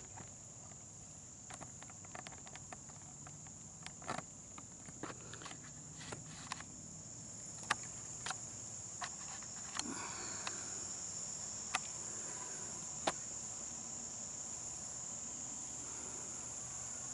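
Steady, high-pitched insect chorus that runs unbroken, with scattered sharp clicks and light knocks over it.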